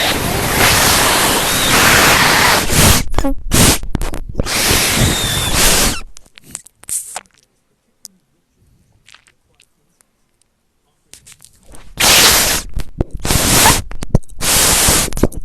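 Loud, harsh crackling noise like static, blasted down a call in long bursts. It stops for a few seconds in the middle, then starts again.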